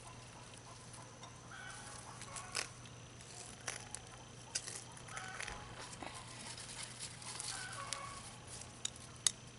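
Soft scattered taps and rustling of damp garden soil being handled off a freshly dug garlic bulb, with a few faint chirps in the background.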